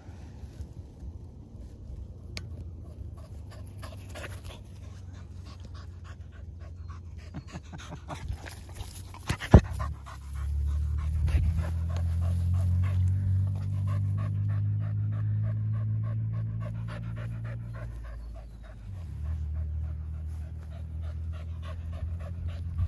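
A dog panting close by, with a sharp click about halfway through. A steady low hum comes in about halfway and runs under the panting, dipping briefly near the end.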